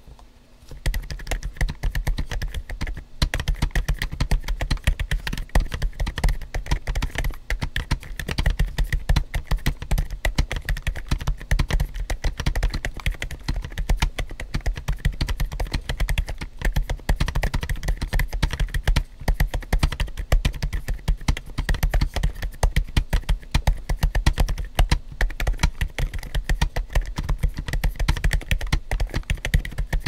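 Continuous typing on a GAS67 Whisper mechanical keyboard with Gazzew Bobagum silent switches and o-ringed PBT keycaps, dampened inside with cork, foam and an IXPE sheet: a rapid stream of soft, low keystrokes starting about a second in.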